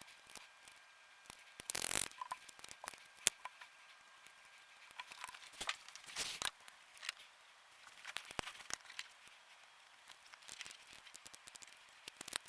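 Scattered small clicks and taps with short scraping and rustling sounds, the handling of a DualSense controller's plastic parts and small tools during a repair. The loudest are a brief scrape about two seconds in and another around six seconds.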